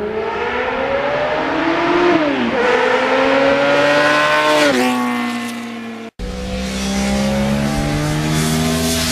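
Sport motorcycle engine accelerating hard, its pitch climbing and then dropping sharply at two upshifts. After an abrupt cut about six seconds in, the engine runs steadily with a slowly rising pitch.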